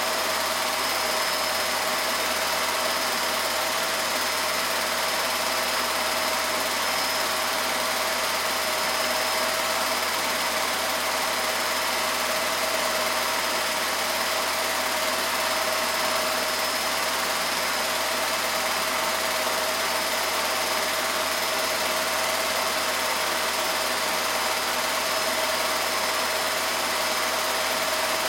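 Steady, unchanging hiss with a constant low hum and a thin whine, like a small motor running.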